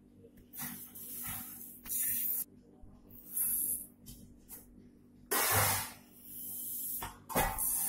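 Dry rice grains pouring and shifting in a stainless steel pot: several short hissing rushes, the loudest about five and a half seconds in.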